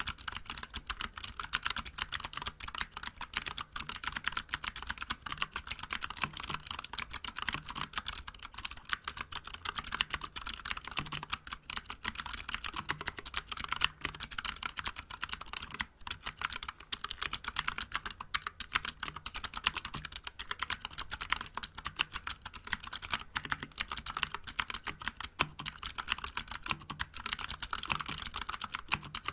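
Continuous fast typing on a Vortex Vibe mechanical keyboard with clicky Cherry MX Blue switches and SA-profile keycaps: a dense, steady run of sharp key clicks with no pauses.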